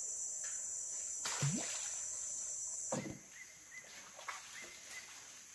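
Rainforest insects droning at a steady high pitch, with a short thump about a second and a half in. The drone stops about three seconds in, leaving faint repeated chirps.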